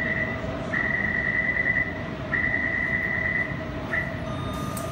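Metro platform screen door closing warning: a high beeping tone in three long beeps of about a second each and a short fourth one, over the steady hum of a Taipei Metro C321/C341 train standing at the platform. Near the end comes a sharp click, and a thin steady whine begins as the train starts to move.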